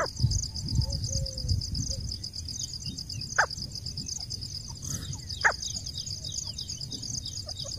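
Steady pulsing trill of crickets or other insects, with two short sharp bird calls about three and a half and five and a half seconds in. Low rumbling noise underneath in the first couple of seconds.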